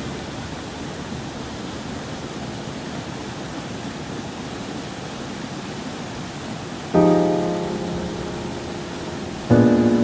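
Steady rush of mountain stream water, with background piano music entering near the end: two chords struck a couple of seconds apart, each ringing on and slowly fading.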